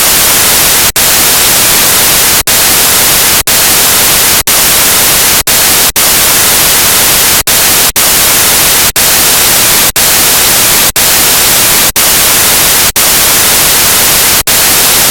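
Loud, steady static hiss, broken by brief dropouts to silence roughly once a second.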